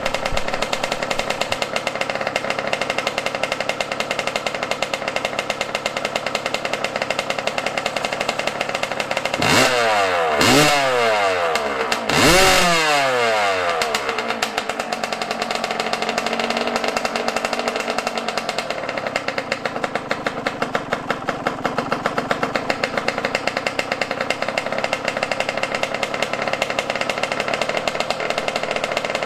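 Yamaha YZ125's single-cylinder two-stroke engine idling, revved briefly three times about ten seconds in, each rev rising and falling, then settling back to idle. The engine is being tuned at the carburetor's air and idle screws because it was running rich.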